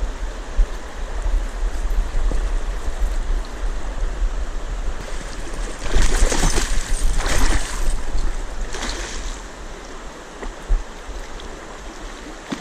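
Fast river current rushing steadily, with a hooked salmon thrashing and splashing at the surface twice around the middle.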